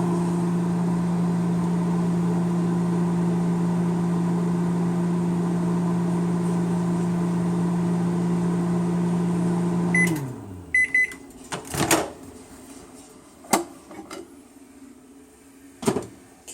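Microwave oven running with a steady hum while cooking corn on the cob wrapped in wet paper towel. About ten seconds in it shuts off and the hum slides down in pitch. Short end-of-cycle beeps follow, then a few clunks and knocks.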